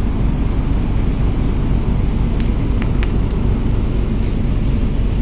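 Ferry's engines running with a steady low drone, heard on the enclosed vehicle deck, with a few faint clicks about halfway through.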